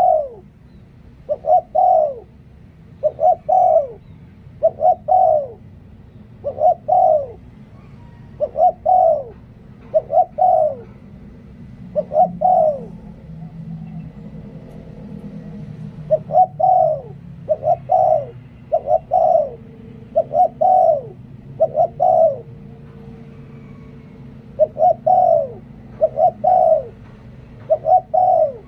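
Spotted dove cooing again and again in the 'liu tan' calling style: short, falling coos about every one and a half to two seconds, broken by a couple of pauses of a few seconds.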